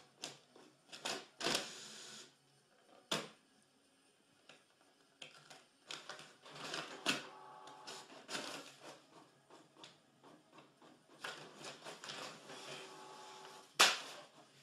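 Desktop printer working: short runs of mechanical whirring from the print head and paper feed, broken up by clicks, with one sharp loud click near the end.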